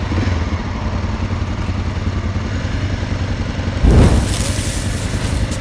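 Honda NX250's single-cylinder four-stroke engine idling with a steady low pulse, freshly started. About four seconds in, a short loud burst breaks in.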